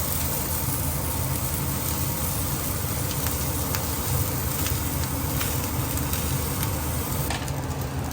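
Steady low rumbling hum of kitchen cooking equipment running, with a few faint light clicks partway through.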